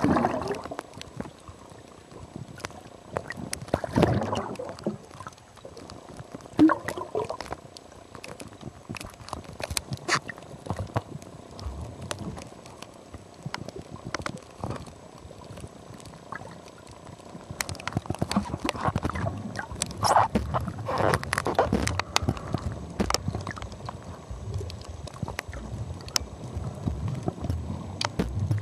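Water gurgling and sloshing, with scattered clicks and a few louder swelling surges.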